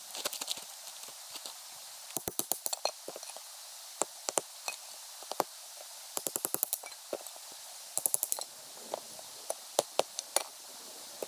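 Wood campfire crackling and popping: sharp clicks, several in quick runs of five or six, over a steady hiss.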